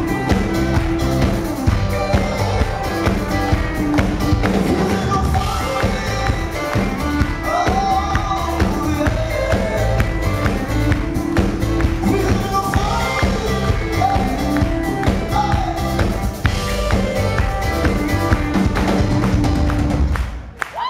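A live pop-rock band playing loud and amplified: drum kit, electric bass and a male lead vocal. The music breaks off abruptly near the end.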